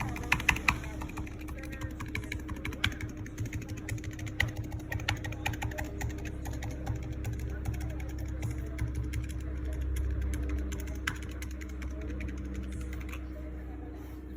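Razer Huntsman Mini keyboard with linear optical switches being typed on: a quick run of key presses that thins out to a few scattered presses in the later part, over a steady low hum.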